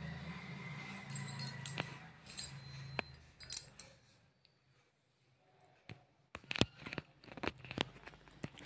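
Metal slotted spoon clinking and scraping against a steel kadhai as fried potato pieces are scooped out, over a low hum. After a short pause, a few sharp clicks near the end.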